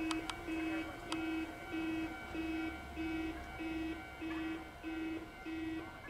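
Japanese electronic railway level-crossing alarm ringing a steady repeating ding, about one and a half strikes a second, the sign that the crossing is active for an approaching train. A few sharp clicks sound in the first second.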